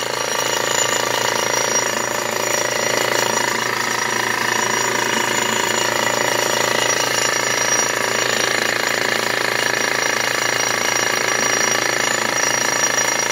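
Vintage Sears Roebuck Craftsman air compressor running steadily, with no pressure showing yet on the gauge.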